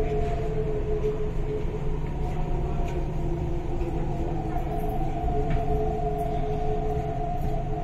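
MTR East Rail Line R-Train running, heard from inside the carriage: a steady rumble of wheels and body with a constant two-note whine from the traction motors.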